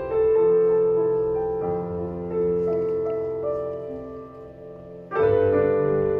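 Slow piano music played through a hi-fi loudspeaker system and recorded in the listening room with only two groups of acoustic panels fitted on the front wall. A chord rings out at the start and fades, and another is struck about five seconds in.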